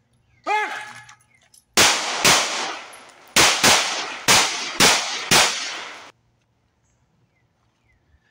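Walther PPQ SC 9mm subcompact pistol fired seven times over about four seconds, rapid shots in quick succession, each with a short ringing echo.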